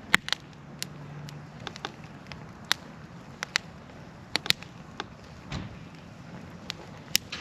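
Wood campfire of kiln-dried firewood crackling, with sharp pops at irregular moments, over a faint low hum that fades after the first couple of seconds.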